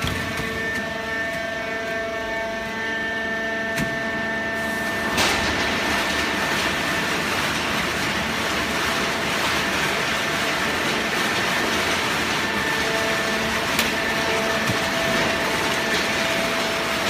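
Horizontal hydraulic waste-paper baler running, a steady machine hum with several held tones over a noisy rush that grows fuller about five seconds in and then holds steady.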